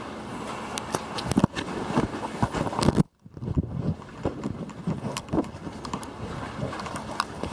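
Wind buffeting the camera's microphone, with handling rustles and scattered clicks; the sound drops out completely for a moment about three seconds in.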